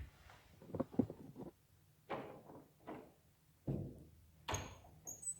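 Footsteps, one thud about every 0.8 s, with a short high squeak near the end.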